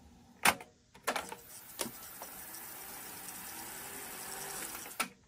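Cassette deck transport: a few sharp mechanical clicks, then a steady whir for about four seconds, ending with another click.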